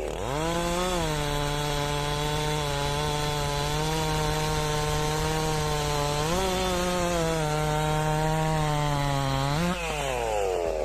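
Stihl 064 chainsaw's single-cylinder two-stroke engine running at high revs while cutting wood. It revs up at the start and then holds a steady pitch, steps up about six seconds in, then sags slowly under load, with a brief rise and drop near the end.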